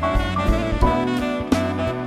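Live jazz combo: a tenor saxophone plays a melody of held and moving notes over a walking bass line and drum kit, with sharp drum and cymbal hits.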